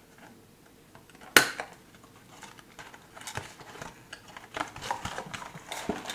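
Packaging handled while an LED strip is unboxed: a cardboard retail box and a foil bag rustle and click. One sharp click about a second and a half in is the loudest sound, followed by scattered smaller clicks and rustling.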